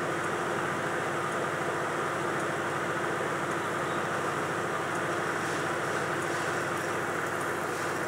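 Microwave oven running: a steady electric hum with a low buzz and fan noise.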